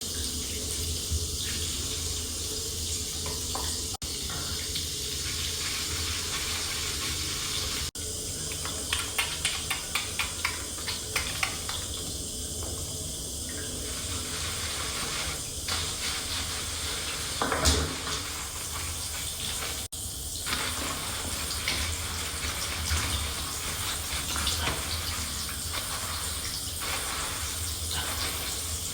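Running water from a tap, steady throughout, cut off very briefly a few times. Around nine to eleven seconds in, a quick series of short sharp sounds rises over the water.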